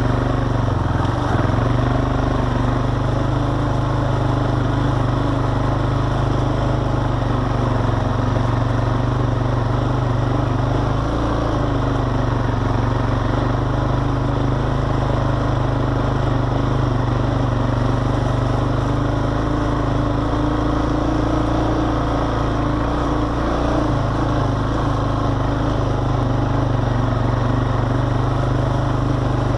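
ATV engine running steadily while it is ridden along a dirt trail, its note shifting slightly now and then with throttle.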